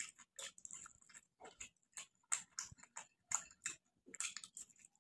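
Close-up eating sounds: a man chewing chicken and rice with his mouth open, wet lip smacks and clicks coming a few times a second at an uneven pace.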